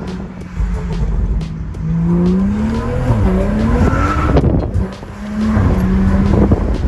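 BMW 335i's N55 turbocharged straight-six, fitted with an aFe Magnum Force cold air intake, accelerating hard with revs rising and wavering while the tyres squeal as the car slides sideways. The engine drops off briefly about five seconds in, then pulls up again.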